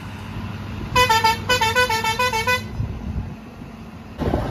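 A vehicle's musical horn plays a quick tune of short alternating notes, two runs about a second in, over a steady low engine hum. Near the end the sound cuts abruptly to rumbling wind noise on the microphone.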